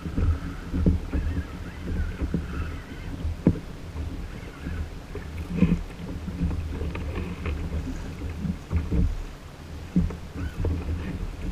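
A Hobie Outback kayak's hull slapping through choppy water, with wind buffeting the microphone and irregular knocks and splashes against the hull.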